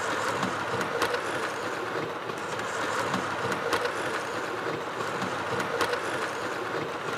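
Model railway train running along the track: a steady running noise with irregular sharp clicks of the wheels over the rail joints.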